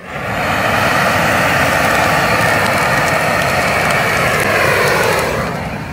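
Hose-fed propane weed-burner torch running at full flame against the weeds: a loud, steady rushing noise that starts suddenly and eases off near the end.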